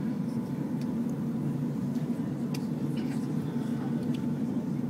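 Steady low drone of Airbus A380 cabin noise in flight, with a faint steady whine above it and a few light clicks.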